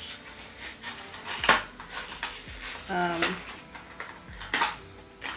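Small hard objects clicking and knocking on a glass desktop as they are picked up and set down: a few separate taps, the loudest about a second and a half in.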